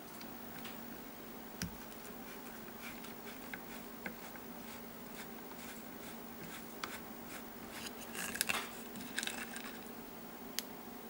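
Scattered light clicks and scrapes of a screwdriver working the stock screws and of the air rifle's metal and wooden parts being handled, with a denser bout of scraping about eight seconds in, over a steady low hum.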